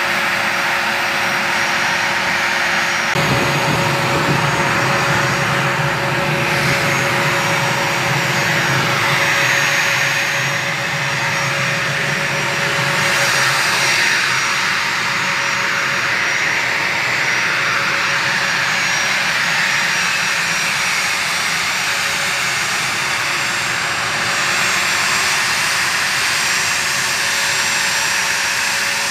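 A-10 Thunderbolt II jet engines running steadily, a loud, even jet noise with steady tones. A lower rumble joins about three seconds in, and faint whines rise and fall in the middle.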